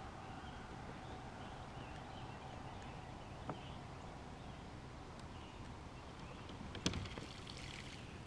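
Faint steady outdoor background with a light click about three and a half seconds in and a sharper knock about seven seconds in, from gear being handled on a plastic fishing kayak.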